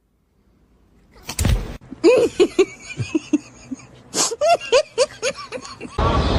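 Kitten mewing over and over in short, high, rising-and-falling cries, after a brief rustle or thump. A louder, mixed sound cuts in just before the end.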